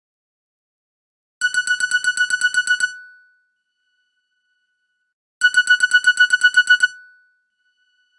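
Nokia N70 mobile phone playing a ringtone: a rapid trill of electronic beeps on one steady pitch, about seven a second. Each trill lasts about a second and a half, and it sounds twice with a pause of about two and a half seconds between.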